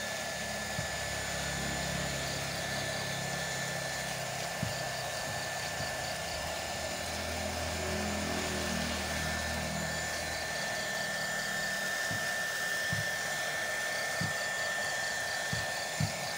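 Small 300 W hot air gun running steadily: a fan whine held at one pitch over a rush of blown air, heating a plastic bag to shrink-seal it. A few light knocks from the bag and shoe being handled.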